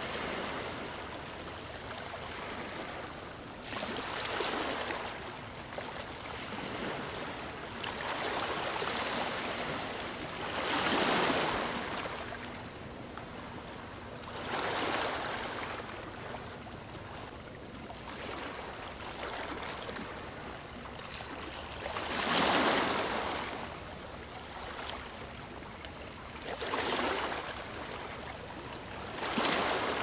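Sea waves breaking and washing up a sandy beach: a steady wash of surf that swells about seven times, the loudest surges about a third of the way in and again past two-thirds.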